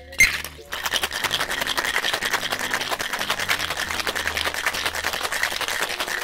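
Ice rattling hard inside a sealed Boston shaker (stainless tin over a mixing glass) as a cocktail is shaken vigorously: a fast, even rattle of ice against the tin, with a sharp clank just after the start.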